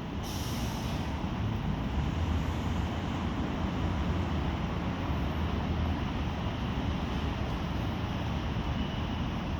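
Steady low rumble of city background noise, with no distinct strikes or rhythm, and a short hiss just at the start.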